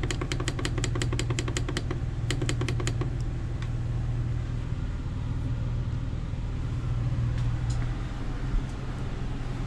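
Rapid clicking of a thermostat's push button pressed over and over, in a fast run and then a shorter one within the first three seconds, over the steady hum of a rooftop air conditioner running. The hum drops a little about eight seconds in as the air conditioner's compressor shuts off, having been satisfied by the raised setpoint.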